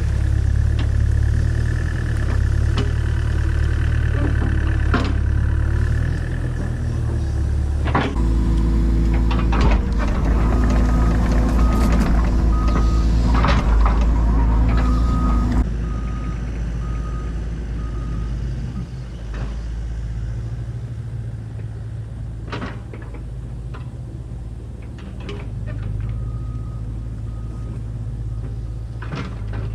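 Takeuchi TB285 excavator's diesel engine running, working harder for several seconds about a third of the way in, while its travel alarm beeps in two runs of evenly spaced beeps. Sharp metallic clanks and knocks from the machine come at intervals.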